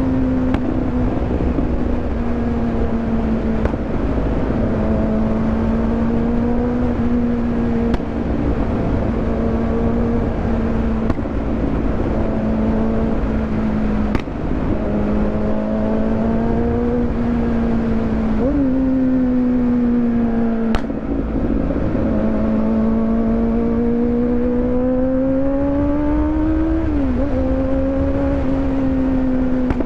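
Kawasaki motorcycle engine running under way at a steady, loud cruise, its note drifting slightly up and down. About two-thirds through the pitch steps up suddenly, and near the end it climbs and then drops sharply.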